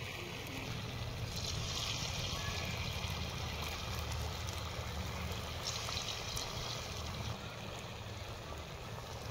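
Hot oil sizzling and bubbling in a steel kadhai as batter-coated samosas deep-fry, the sizzle swelling twice.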